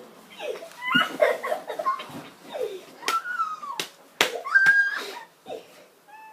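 Children giggling and letting out short, high squeals, with a few sharp smacks in between.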